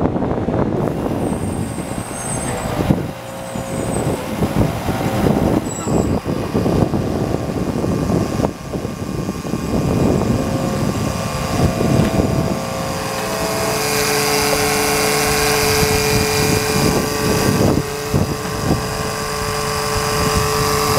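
12-volt electric fluid-extraction pump running, sucking used CVT fluid up a hose from the transmission, amid irregular clattering noise. A steadier whine sets in about halfway through.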